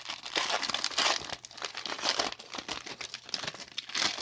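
Foil trading-card booster pack being torn open and handled, its wrapper crinkling in repeated bursts, loudest about a second, two seconds and four seconds in.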